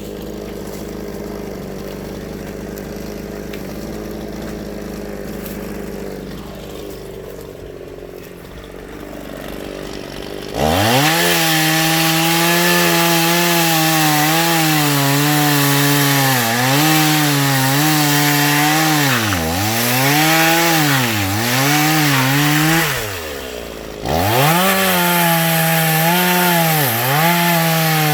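Chainsaw idling, then revved to full throttle about ten seconds in and cutting through firewood logs, its pitch sagging repeatedly as the chain bites into the wood. It lets off briefly about two-thirds of the way through, then revs up and cuts again.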